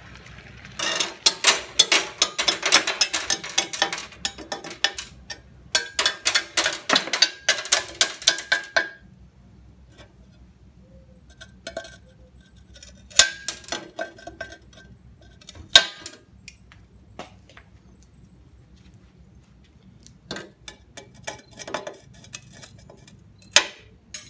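Tile nippers biting off the thin ceramic fingers left by wet-saw relief cuts in a floor tile, with crisp cracking snaps of breaking tile. Two runs of rapid snapping and crumbling come in the first nine seconds, then single sharp snaps every few seconds as the last bits are nipped away.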